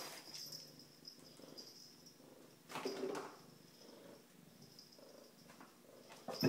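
A cat batting at a toilet paper roll on a metal holder: the paper rustles and the roll spins and rattles, with a louder burst about three seconds in and a sharp one at the very end.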